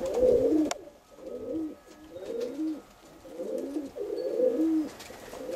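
Domestic pigeons cooing close by, a steady run of repeated rising-and-falling coos, with a single sharp click about a second in.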